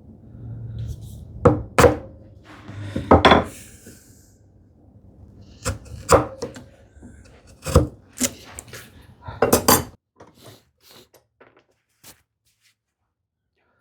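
Irregular sharp knocks and clatter of a steel chisel and small wooden pieces on a workbench during hand-tool work on turn buttons. The knocks stop about ten seconds in, followed by a few faint ticks.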